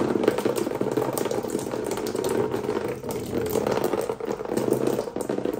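Water from a central-heating system running out of an opened pipe fitting and splashing into a plastic tub: a steady spattering trickle as the system is drained.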